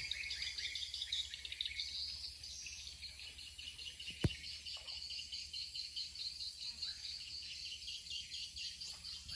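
Steady, faint chorus of insects, crickets among them, trilling in fine rapid pulses, with a few faint bird chirps. There is a single sharp click about four seconds in.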